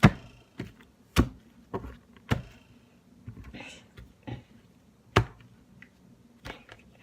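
A sandwich being made roughly on a counter: irregular sharp knocks and chops, the loudest at the start and about one, two and five seconds in, with softer taps and a brief rustle between.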